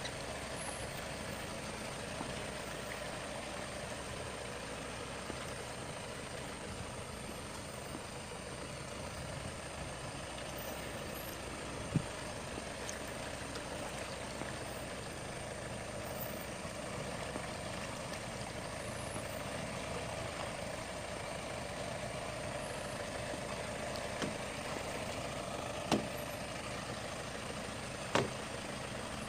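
Heavy vehicle engine running steadily, with a few sharp knocks or clanks, one about twelve seconds in and two near the end.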